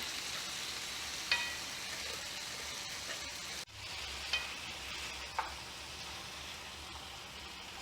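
Mutton and masala sizzling in a hot pan as they are stirred together, with a steady frying hiss. A few clinks of the spoon against the pan come through, one with a short metallic ring about a second in.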